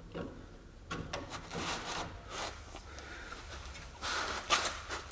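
Hand tools clicking and scraping against metal in short bursts, as a Torx 60 bit and wrench are fitted onto the gas strut's nut.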